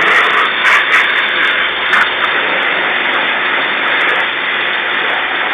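Self-service jet wash lance spraying power shampoo onto a car at high pressure, a steady hiss of water spray.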